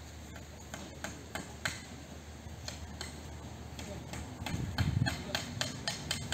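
Light hammering knocks, scattered at first and coming about four or five a second in the last two seconds.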